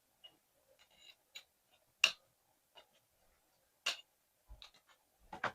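Scissors snipping: a few separate sharp snips, the loudest about two seconds in and about four seconds in, and a quick cluster near the end.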